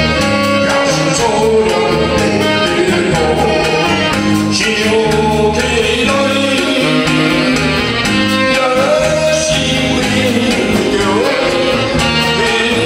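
A man singing a slow ballad into a handheld microphone, amplified through a PA, over a band with drum kit and keyboard keeping a steady beat.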